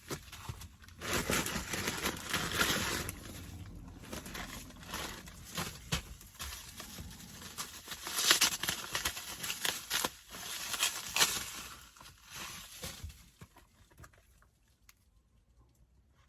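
Packaging being opened by hand: irregular crinkling and rustling, with a few louder bursts, dying away near the end.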